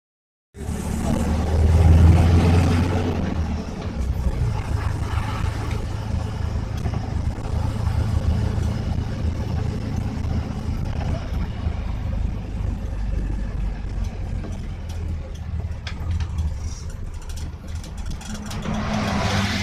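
A motor vehicle's engine running with a steady low hum, loudest about two seconds in, with a few short knocks near the end.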